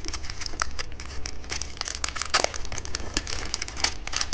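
Plastic candy wrapper crinkling and rustling as it is handled and opened, a dense run of irregular quick crackles.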